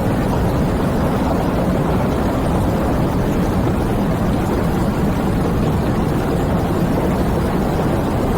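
Steady heavy rain: a dense, even rush of noise, deep and full rather than hissy, with no single drops standing out.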